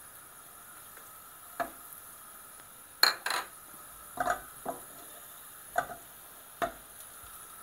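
A wooden spoon knocks and scrapes against a china plate and a stainless steel saucepan as dry spices are pushed into the pan: about seven short, sharp knocks spread out over a few seconds. Beneath them, onions fry in oil with a faint steady sizzle.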